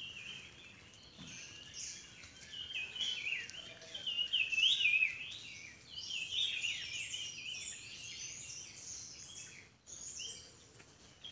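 Several small birds singing and chirping at once: a dense, overlapping run of quick high notes, stepping and gliding in pitch, loudest from about three to seven seconds in and breaking off for a moment near the end.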